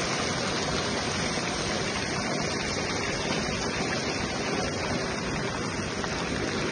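Steady hiss of a pan of corn and sardines cooking on the stove, simmering in a little water.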